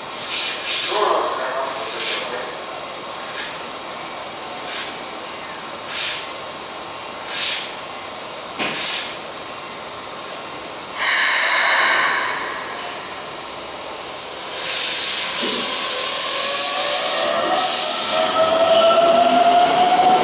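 Keikyu 600 series electric train at a station platform: short repeated hisses of air, a louder burst of hiss about halfway through, then a longer hiss and a rising whine of its traction motors as it starts to pull away near the end.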